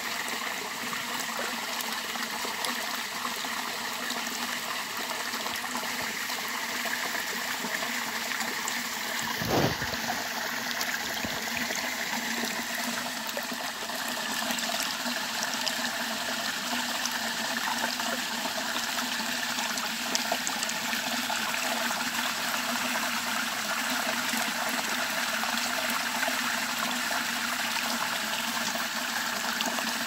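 Shallow rocky brook running and trickling over stones: a steady babble of flowing water. One low bump sounds about a third of the way through.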